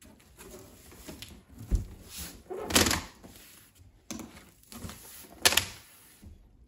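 Flaps of a large cardboard shipping box being pulled open and folded back: cardboard scraping and rustling, with a few sharp thumps and knocks as the flaps swing and hit.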